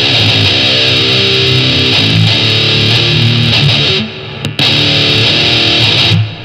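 Electric guitar with distortion played through a small Marshall combo amp and picked up by a condenser microphone in front of the amp: a riff of held, ringing notes, cut off briefly about four seconds in and again near the end.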